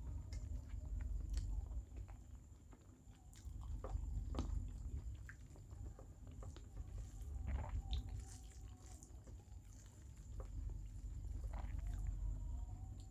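Close-up chewing and mouth sounds of a person eating rice with small-fish curry, with scattered soft smacks and clicks. A faint steady high whine sits under it.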